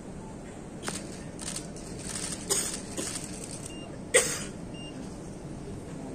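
Scattered knocks and clicks over a steady room hum, the loudest a single sharp knock about four seconds in.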